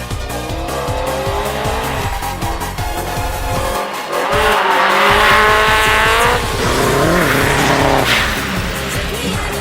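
Rally car engine revving hard, loudest about halfway through before its pitch falls away, mixed with Eurobeat dance music with a steady beat.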